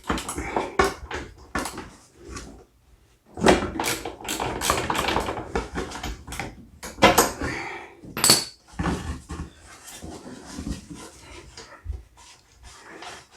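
Irregular metallic clicks and clanks of hand tools working a spark plug out of a two-stroke snow thrower engine, with a busier stretch of clatter a few seconds in and a couple of sharp knocks later on.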